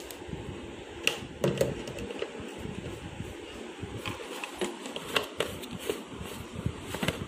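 Yellow Labrador retriever chewing and licking at the floor, making irregular small wet clicks and smacks, a few each second.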